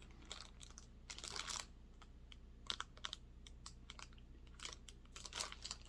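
Faint handling noise of a cross-stitch project: soft rustling and crinkling of fabric and packaging with scattered small clicks and taps, coming in a few short bouts.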